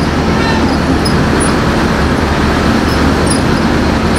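Cab interior of a Scania R580 truck creeping in a traffic jam in the rain: the V8 diesel runs with a steady low drone under an even wash of rain and road noise.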